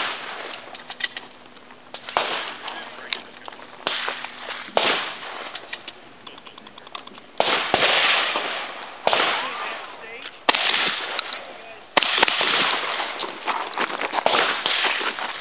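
A string of shotgun shots fired one at a time, about nine in all, coming every one to two and a half seconds, each trailing off in an echo across the range.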